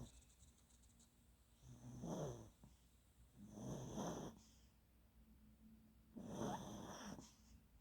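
Sleeping puppy snoring: three snores about two seconds apart, each lasting around a second.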